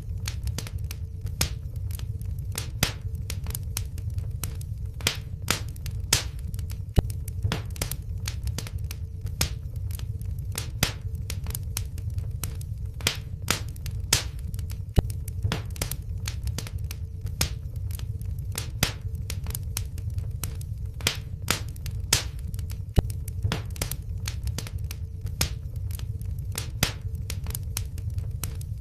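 Wood fire burning in a fireplace: frequent sharp crackles and pops, several a second and uneven, over a steady low rumble of the flames, with a faint steady hum underneath.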